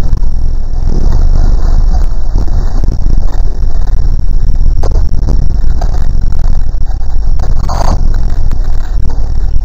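Loud, steady, heavily distorted low rumble, with scattered clicks and a brief brighter crackle near the end.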